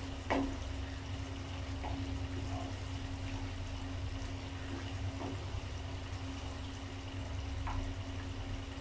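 Thick chicken gravy simmering and bubbling in a nonstick pan while being stirred with a wooden spatula, with a few faint scrapes. A steady low hum runs underneath.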